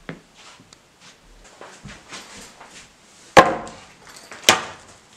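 Wooden skateboard deck being put down on a table: two sharp wooden knocks about a second apart, the first the loudest, after some quieter handling knocks and shuffling.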